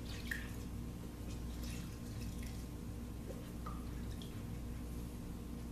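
Glue brush dabbing and scraping in a plastic tub as glue is picked up for painting onto dowels: a few faint, scattered clicks and small ticks over a steady low hum.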